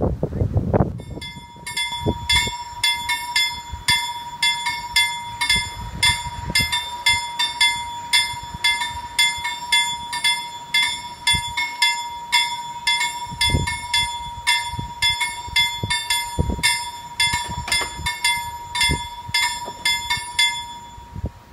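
Level-crossing warning bell ringing about twice a second over a steady high tone, while the crossing's barriers lower. It stops abruptly near the end, once the barriers are down. A few low wind thumps on the microphone.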